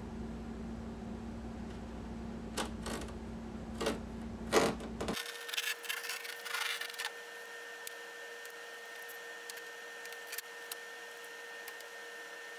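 A thin knife blade cutting and scraping through fiberglass cloth along a canoe's wooden stem: a handful of short rasping strokes in the first half, then only faint ticks, over a steady background hum.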